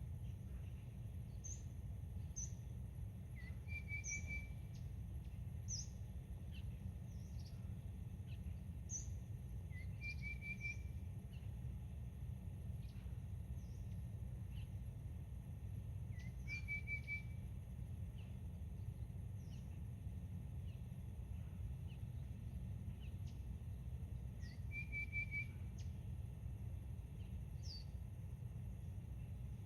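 Wild birds calling: a short, rapid trilled phrase repeats about every six to seven seconds, among scattered thin, high chirps, over a steady low rumble.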